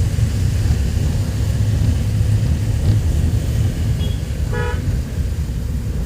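A single short horn toot about four and a half seconds in, over a steady low rumble of wind on the microphone.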